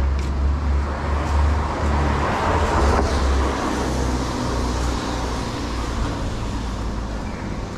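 Road traffic: a vehicle passing close by, its noise swelling to a peak about three seconds in and then fading, over a steady low rumble.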